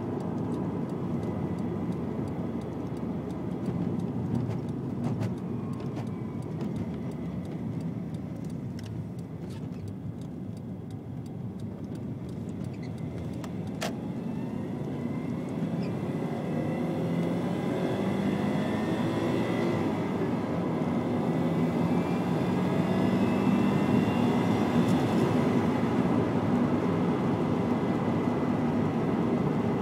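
Subaru Legacy B4 RSK's twin-turbo flat-four running while driving. About halfway through, the engine pulls up through the revs again and again, its pitch rising each time and growing louder.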